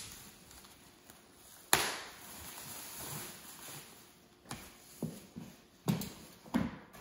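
Bubble wrap and plastic packaging being cut and pulled off a suitcase, rustling, with one sharp loud knock a little under two seconds in and four smaller sharp knocks near the end.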